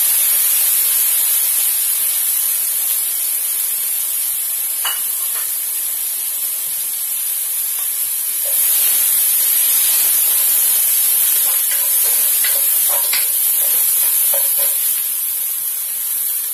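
Hot oil sizzling in a wok as minced garlic fries: a steady, high hiss that gets a little louder about halfway through, with a few small pops and ticks.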